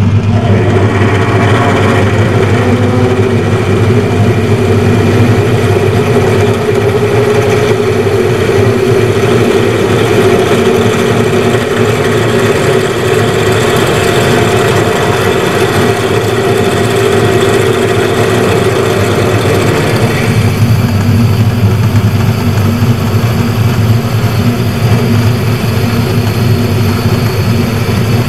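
Metal lathe running under power while a boring tool cuts the inside of a change-gear sleeve: a steady hum with a cutting tone on top. The cutting tone drops away about twenty seconds in, and the lathe keeps running.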